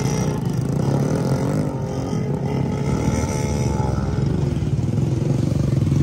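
Motorcycle engine running, its pitch rising and falling with the throttle.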